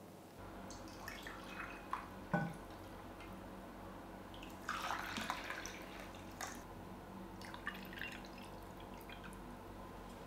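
Mulled cider poured from a glass jug into small glasses: a faint trickle and splash of liquid, with a few light knocks, the sharpest about two seconds in.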